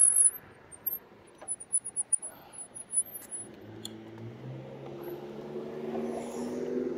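A passing car: its engine and tyres grow steadily louder through the second half as it approaches and goes by. In the first few seconds there are only faint high chirps and a few light clicks.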